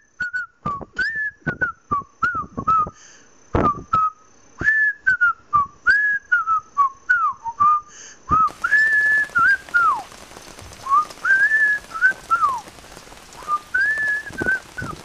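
A person whistling a tune, a clear single line of notes sliding up and down, with sharp clicks keeping time through the first half. About eight seconds in, a steady hiss joins underneath.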